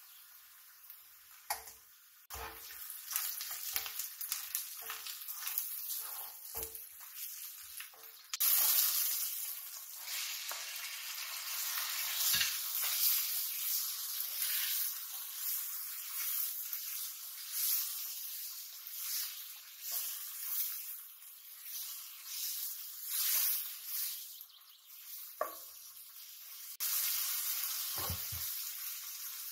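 Food frying in hot oil in a pan: a steady sizzle, much louder from about eight seconds in, with a spatula stirring and now and then knocking against the pan.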